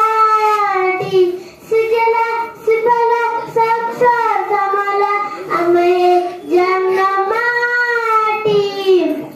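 A young girl singing a patriotic song solo into a microphone, in long held notes broken into phrases by short pauses for breath.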